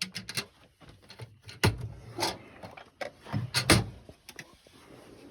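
Steel tool-box drawers on ball-bearing slides being pulled open and pushed shut, with a run of metal clicks, knocks and clunks, the loudest about two seconds in and again near four seconds in.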